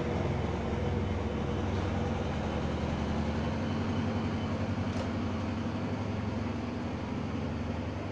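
Passenger coaches of a Thai express train rolling past the platform: a steady low rumble of wheels on rails that slowly eases off, with one short click about five seconds in.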